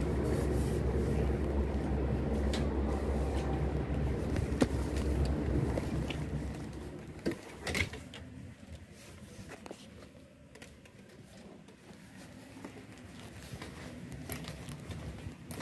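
Steady low rumble of open-air ambience, then a few knocks about seven to eight seconds in as a sliding glass balcony door is shut. After that the sound drops to quiet cabin room tone with light handling clicks.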